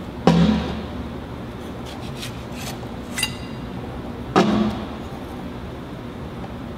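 Steel fixture blocks set down on a steel workbench: two clanks about four seconds apart, each with a short ringing, and lighter metal clicks and clinks between them.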